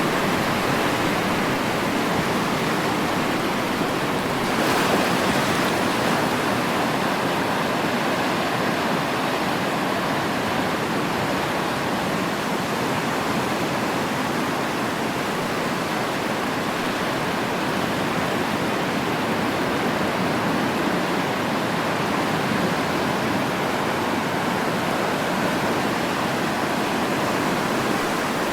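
Sea waves washing on a shore: a continuous rush of surf, with one slightly louder wave about five seconds in.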